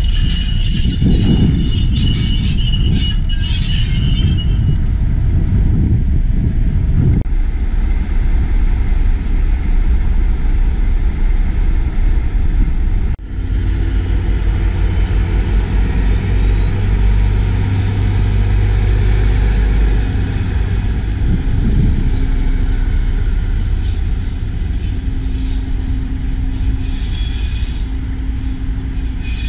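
Diesel train on non-electrified track: steel wheels squealing high-pitched in the first few seconds, then a steady low diesel rumble, with squealing again near the end.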